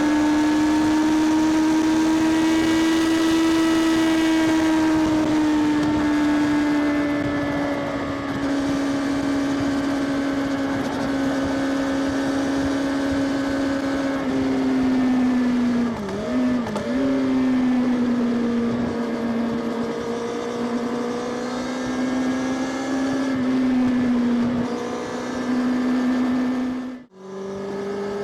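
Kawasaki Ninja ZX-6R inline-four engine and exhaust at steady riding revs, its note drifting slightly in pitch. The note dips and recovers briefly about halfway through. Near the end it cuts out sharply for a moment and comes back at a lower pitch.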